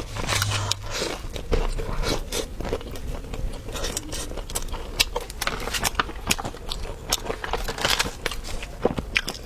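A person chewing and biting food close to the microphone, most likely thick pickled chili peppers in scallion oil. It comes as many small, irregular crunches and clicks.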